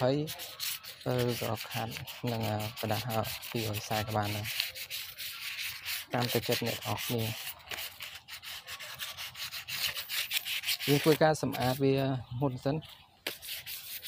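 Sandpaper rubbed by hand in quick back-and-forth strokes over a carved wooden statue, a steady rasping hiss. The carving is being sanded down to prepare it for a fresh sprayed finish.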